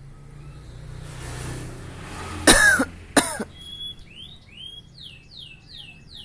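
Javan myna (jalak kebo) imitating a human cough: a rising, breathy wheeze, then two loud cough-like bursts, followed by a quick run of short falling whistles.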